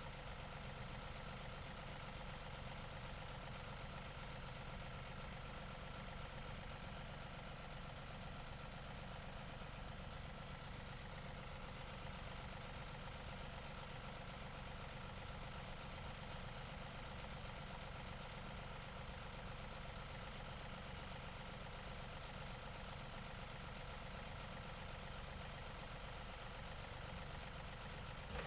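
Tractor engine running steadily at an even speed, with no revving or changes in load.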